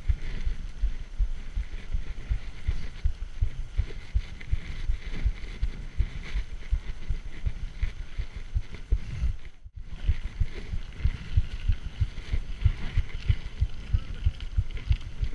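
Giant Trance full-suspension mountain bike rolling over a bumpy dirt and gravel track: a dense, irregular run of low thumps and rattles as it takes the ruts and stones. The sound drops out briefly about two thirds of the way through.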